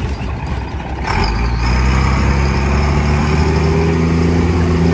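Engine of an old military cargo truck running as it drives, heard from inside its open cab; it picks up and gets louder about a second in, then runs steadily.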